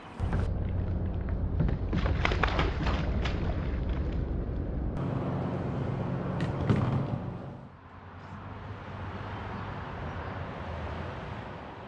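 Clattering knocks and clicks from a landed bass being handled on a fishing kayak and laid on a measuring board. A steady low hum runs underneath.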